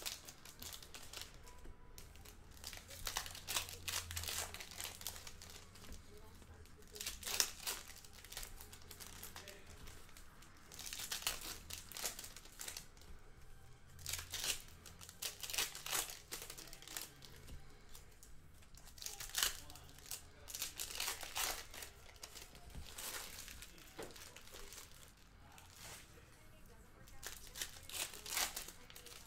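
Foil trading-card pack wrappers crinkling and being torn open by hand, in short irregular crackles every second or two.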